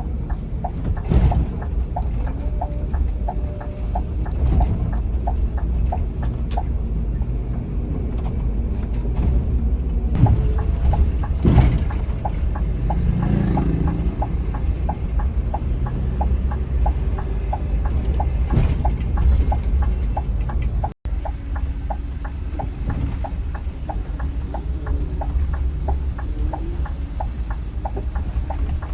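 Scania K360iB coach under way, its engine and road noise heard as a steady low rumble with a regular light ticking over it. The sound briefly drops out about two-thirds of the way through.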